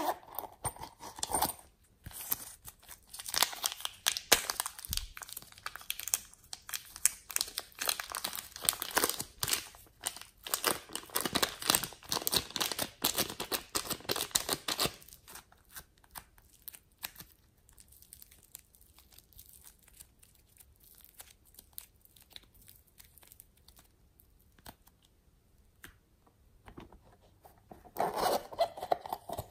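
Sticky crackling and tearing of glossy slime pulled away from plastic containers. It runs thick from about two seconds in until about halfway, thins to faint handling sounds, and picks up again near the end.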